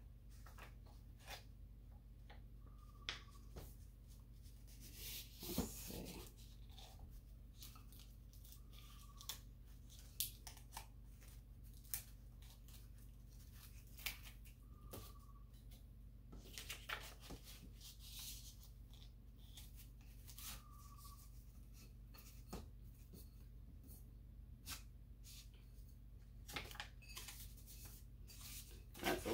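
Quiet, scattered rustling and clicking of a paper sheet being handled around a bowl, with a few short tearing sounds of tape being pulled off.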